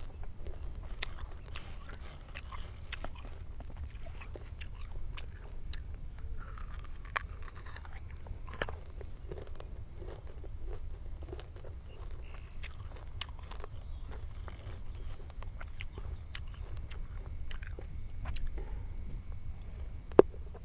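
Close-up chewing and crunching of raw guava dipped in chili salt: irregular crisp crunches as the firm fruit is bitten and chewed, with a sharper crack near the end.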